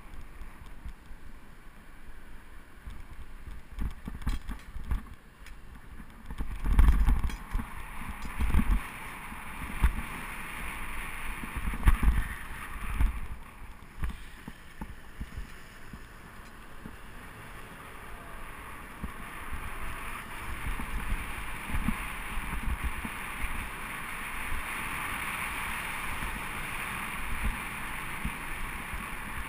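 Wind rumbling and buffeting on a GoPro's microphone during a bicycle ride, over a steady hiss of road and traffic noise; a few heavier gusts or bumps come between about 7 and 13 seconds in.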